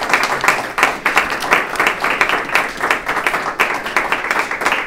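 Audience applause: many people clapping at once, steady and fairly loud.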